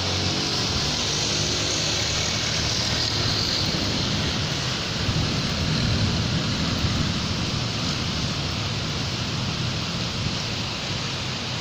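Steady rain falling on a city street, with traffic passing on the wet road: a vehicle's engine hum fades out about half a second in, and a louder low rumble of passing traffic swells around the middle.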